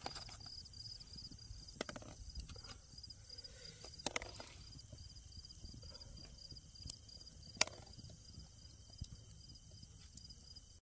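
Night insects chirping in a steady, evenly pulsing high trill, with a few sharp clicks and taps scattered through, the loudest about seven and a half seconds in.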